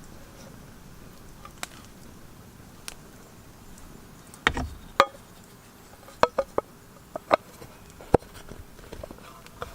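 Scattered sharp knocks and clicks, about a dozen at irregular intervals, a few louder ones bunched in the middle and second half, typical of cooking gear being handled.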